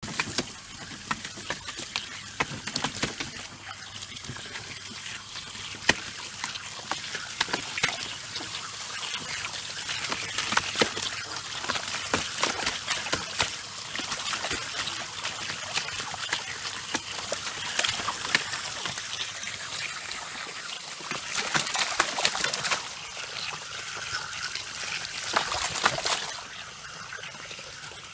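Water from a garden hose spray nozzle running steadily into a plastic paddling pool, with a dog splashing about in the shallow water, giving many short splashes over the hiss of the stream. The running water gets quieter shortly before the end.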